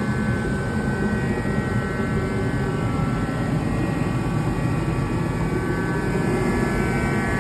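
Portable forced-air torpedo-style space heater running: a steady rush of fan and burner with a faint steady high hum over it.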